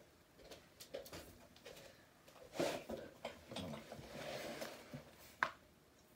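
Scattered small clicks, knocks and rustling as objects are handled, with a sharp click near the end.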